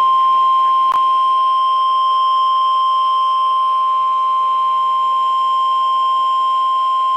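NOAA Weather Radio warning alarm tone: a single steady 1050 Hz tone held unbroken, sounding ahead of a severe thunderstorm warning message. A brief click about a second in.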